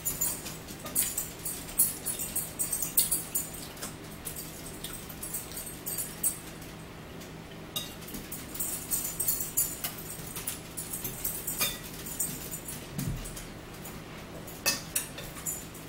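Eating sounds at a dinner table: metal forks clicking and scraping on plates and bowls, with chewing, heard as irregular runs of short clicks.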